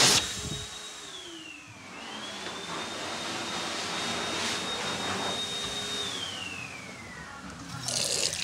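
Robus electric hand dryer: the air blast cuts off and the motor whine winds down. Then a dryer motor whines up, runs steadily for about four seconds and winds down again. A tap starts running near the end.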